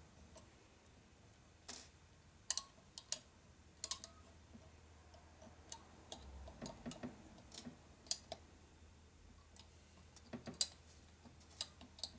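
Small metal parts clicking and tapping at irregular intervals, about a dozen sharp clicks, as carbon brushes and their coil springs are worked into the brush holders of a Harley 12-volt generator's brush plate, where the springs are a tight fit. A faint low hum runs underneath.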